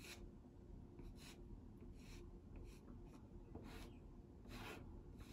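Faint scratchy strokes of a soft red pastel stick being lightly dragged across sanded pastel paper, about one stroke a second.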